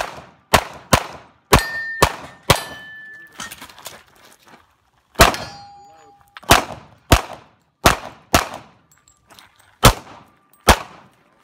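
A single-stack pistol fires a string of about a dozen shots, mostly in quick pairs about half a second apart, with a pause of a couple of seconds after the first several. Hits on steel targets ring with a short, clear ding after several of the shots.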